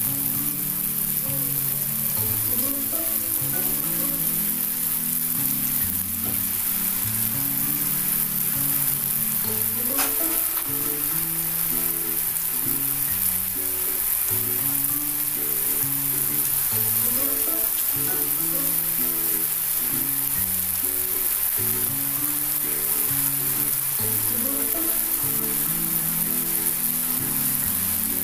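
Rice-flour dough triangles sizzling steadily as they deep-fry in hot sunflower oil on a high flame, with background music of slow held notes.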